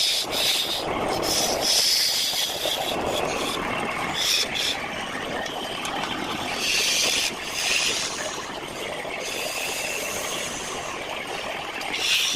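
Wood lathe running while a turning chisel cuts the spinning workpiece: a steady machine hum with a hissing scrape that swells and fades every second or two as the tool bites.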